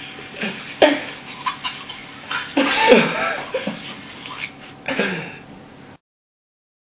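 A group of young men laughing in several bursts, the loudest about three seconds in. The sound cuts off to dead silence about six seconds in.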